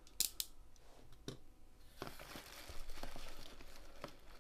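Packaging being handled: two sharp plastic clicks within the first half second and another about a second later, then about two seconds of crinkling and scraping as a clear plastic storage box is worked out of a cardboard shipping carton.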